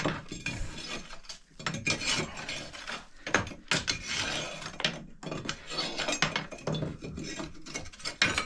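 Nails and scrap iron being raked and scooped out of a wood stove's ash: irregular metal scraping, clinking and clattering.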